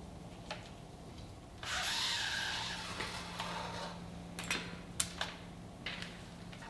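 Handling noises: a scraping or rustling sound lasting about a second and a half, then a few sharp clicks and taps.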